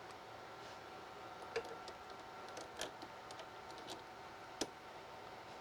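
A few light clicks and taps of plastic parts being handled on a Cricut Maker vinyl cutter as its tool holder is checked, over a faint steady hum.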